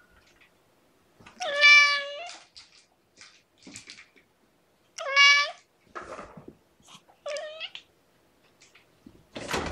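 Cats meowing: three clear meows, about a second and a half in, about five seconds in and about seven seconds in, the first the longest, with a few fainter short calls between. A thump or rustle comes near the end.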